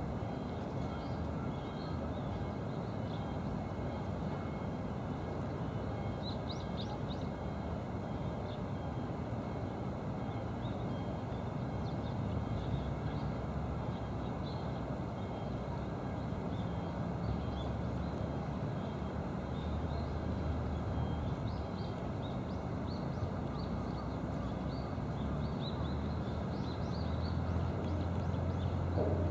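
Steady outdoor background noise with a low drone, like a distant engine, that grows louder near the end, and short faint high chirps of small birds scattered through.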